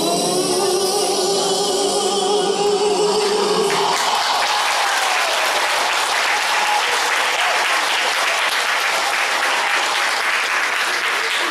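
A duet's final held sung note with its backing music, stopping about four seconds in, followed by an audience applauding.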